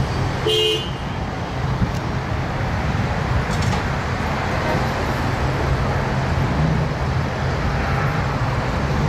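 Steady low engine rumble and traffic noise from vehicles, with a short horn toot about half a second in.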